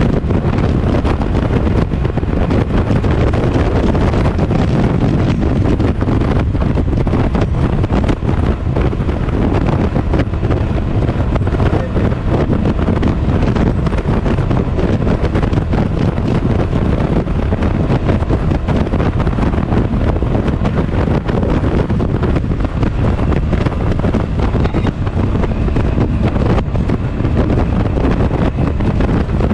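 Heavy wind buffeting on the microphone over a 1983 Honda Sabre 750's V4 engine running steadily at highway speed.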